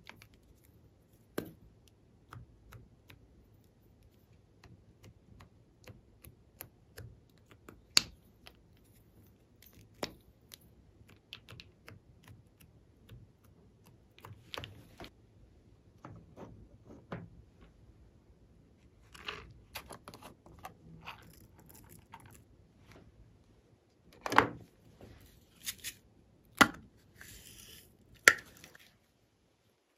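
Small plastic cases of beads and sprinkles clicking and tapping as they are handled and emptied onto glossy slime. Sparse scattered clicks, with a few louder clacks and a brief rustle near the end.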